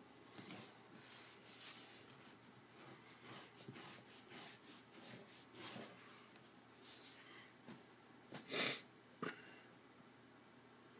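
A person's breathing close to the microphone: a run of short breaths through the first six seconds, then one much louder breath or sniff about eight and a half seconds in, followed by a sharp click.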